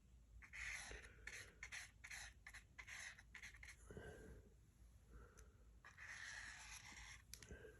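Faint paintbrush strokes: quick short scratchy dabs for the first few seconds, then a longer brushing rub near the end.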